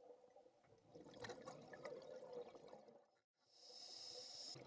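Near silence: faint underwater ambience with scattered soft clicks and crackles, then a faint hiss near the end.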